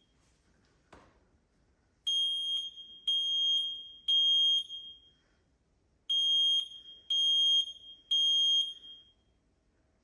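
Fire alarm sounding a high-pitched beep in the three-beep temporal pattern, the fire-evacuation signal: three half-second beeps, a pause, then three more. A click comes about a second in, before the beeps start.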